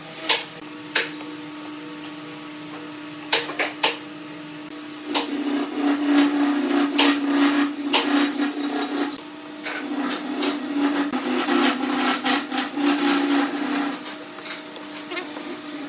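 Power tool working wood: its motor hums steadily, and in two spells of about four seconds each the sound grows louder and rougher as it bites into the wood. A few sharp knocks of wood being handled come before the first spell.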